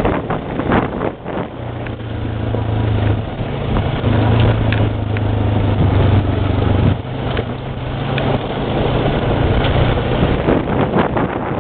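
ATV engine running at a steady pitch, with wind buffeting the microphone.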